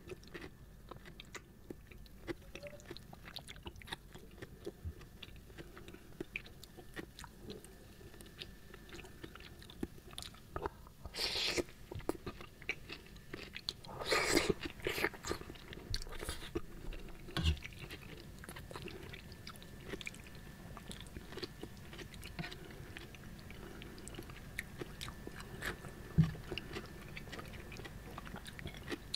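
Close-up mouth sounds of a person eating spicy seblak with macaroni and cucumber: steady chewing with many small wet clicks, and two louder bites about a third of the way in and halfway through.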